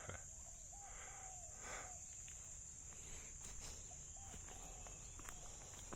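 Steady high-pitched insect drone of a tropical orchard, with a few faint short animal calls about a second in and again after four seconds, and scattered soft rustles.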